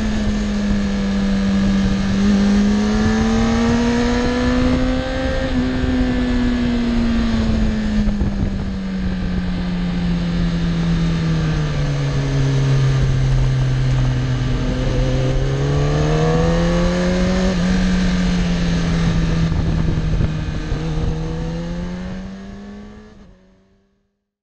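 Sport motorcycle engine heard from the rider's seat while riding, its note slowly rising and falling with the throttle through the bends, over a steady rush of wind noise. The sound fades out near the end.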